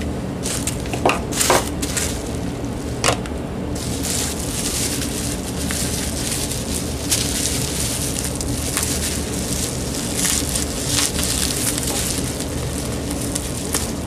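Plastic bubble wrap crinkling and crackling as it is unwrapped by hand, continuous from about four seconds in, after a few separate clicks.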